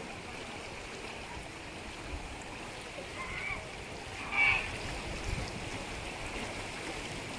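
Water running steadily along a concrete channel, a constant rushing hiss. About halfway through, a person's voice gives a brief shout.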